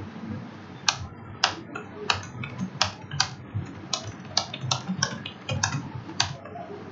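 Computer keyboard typing: a run of sharp, irregular keystrokes, about three a second, starting about a second in and stopping shortly before the end.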